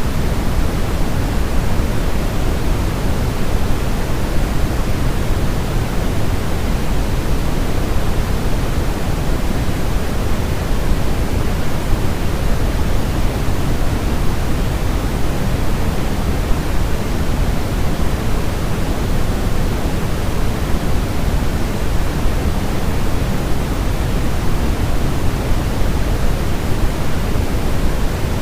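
Steady synthetic noise of even loudness, weighted toward the low end like pink noise, meant to imitate the womb.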